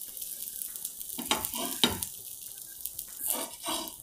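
Mini cheese dosas sizzling on a hot tawa, a steady frying hiss, with a few short scrapes and a sharp click of a utensil against the pan.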